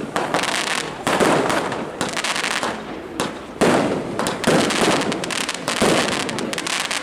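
Fireworks going off in quick succession: about four sharp bangs, each followed by a dense hissing decay, over a constant wash of smaller bursts.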